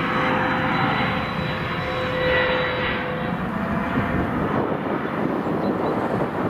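Bombardier CRJ-900's two rear-mounted General Electric CF34 turbofans at takeoff power as the jet climbs out overhead: a loud, steady jet roar with high whine tones that fade about halfway through, leaving a rougher, crackling rumble as the aircraft moves away.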